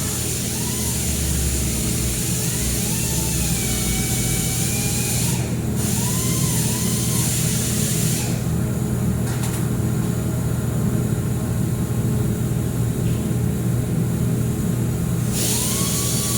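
Steady machine hum and drone from the air-cooled handheld laser welder's cooling unit running between welds. A higher hiss drops away about eight seconds in and returns near the end.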